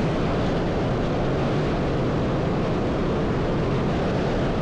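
Steady rushing of a trout stream's flowing water.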